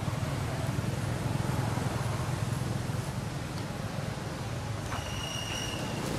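Steady low motor rumble under an even background hiss, with a high steady whistle-like tone starting about five seconds in.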